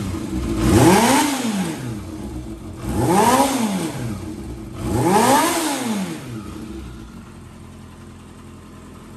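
Yamaha XJR400R's air-cooled inline-four blipped three times, about two seconds apart, through its Moriwaki aftermarket exhaust. Each rev rises and falls straight back, and after the third the engine settles to a steady idle.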